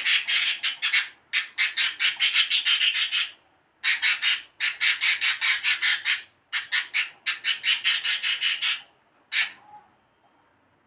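A hand rubs and kneads butter and sugar against the inside of a glazed clay bowl, making rapid gritty rasping strokes at about six a second. The strokes come in several runs with brief pauses and stop about nine and a half seconds in.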